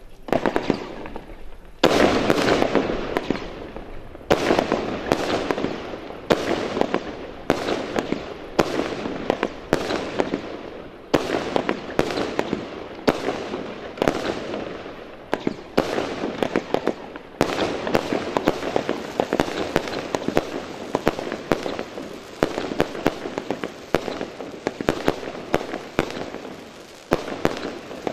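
Pyromould Catwalk 48-shot firework cake firing in a steady sequence of about one shot a second. Each launch thump is followed by a spray of fine crackling pops from the bursting stars.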